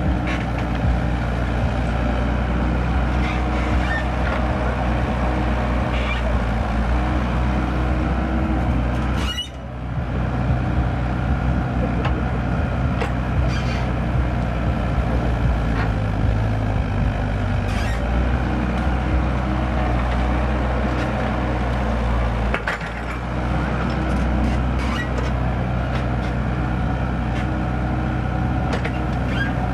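Mini excavator's diesel engine running steadily while the bucket digs through soil and rubble, with scattered short clicks and knocks of stones. The sound dips briefly twice, about a third of the way in and again about three-quarters through.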